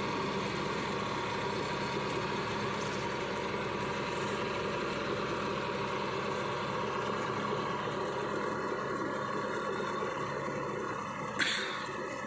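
An engine running steadily at an even pitch. A sharp click comes near the end, after which the engine sound is slightly quieter.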